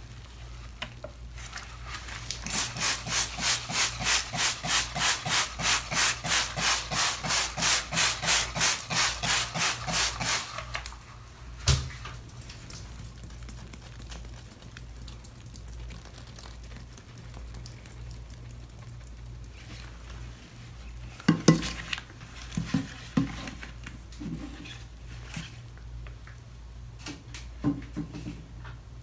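Trigger spray bottle of Ty-D-Bol cleaner pumped rapidly, about three squirts a second for some eight seconds. It is followed by one sharp click and, later, a few scattered light knocks and taps.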